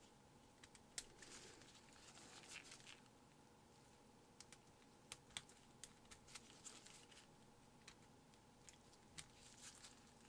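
Faint small clicks and scraping of a thin hand tool working against a diecast toy car's metal chassis as the back axle is fitted: scattered sharp ticks throughout, with a scratchy stretch about one to three seconds in. A faint steady hum lies underneath.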